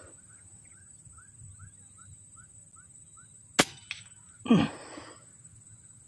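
A single sharp shot from an FX Impact M3 PCP air rifle about three and a half seconds in, followed about a second later by a louder, longer burst of noise. Before the shot, a bird gives a string of short, evenly spaced notes.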